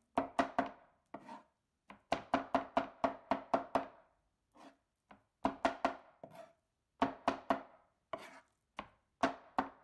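Kitchen knife chopping raw liver finely on a cutting board. Runs of quick knocks, about four or five a second, are broken by short pauses.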